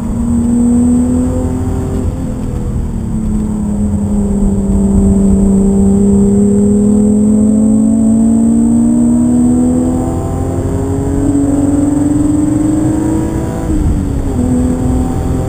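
BMW car engine heard from inside the cabin, pulling hard through the gears: its note drops about two seconds in at an upshift, climbs steadily for about eleven seconds as the car accelerates, then drops again at the next shift near the end, over a steady rumble of road and tyre noise.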